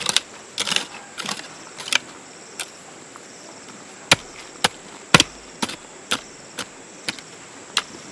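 Crickets or similar insects trilling on one steady high note, with sharp, irregular knocks or clicks landing about once or twice a second; the loudest knock comes about five seconds in.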